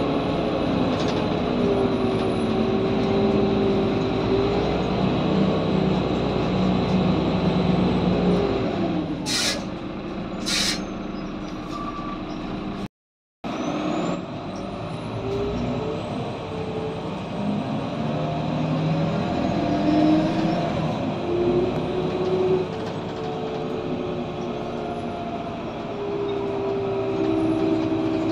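Cabin sound of a Heuliez GX 427 articulated diesel bus: the engine drones, its pitch falling as the bus slows about eight seconds in. Two short, sharp air-brake hisses follow about a second apart, then the engine pitch rises and falls again as the bus pulls away. The sound cuts out for an instant about thirteen seconds in.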